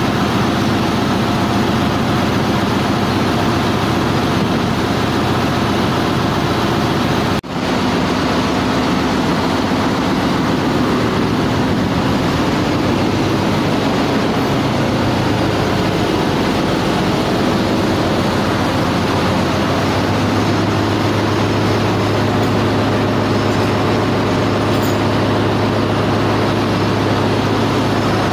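Loud, steady machinery noise of a ship's engine room, a low hum under a broad noise, with a brief dropout about seven seconds in. A deeper steady hum joins about two-thirds of the way through.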